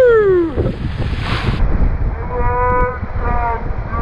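A person's long whoop falling in pitch, over wind rumbling on the microphone, at the start; from about two seconds in, music with steady held notes takes over.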